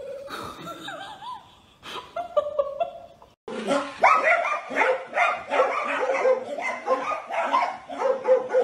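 Small dogs barking and yipping rapidly and without pause, several yelps a second, starting sharply about three and a half seconds in. Before that there are only a few quieter wavering whines.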